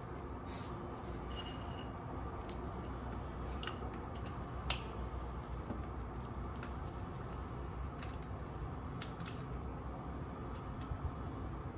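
Scattered light metallic clicks and taps of hand tools working the mounting bolts of a motorcycle starter as they are snugged down, over a steady low hum, with one sharper click about five seconds in.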